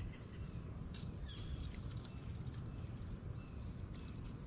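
A steady high-pitched insect chorus running without a break over a low rumble, with a faint click about a second in.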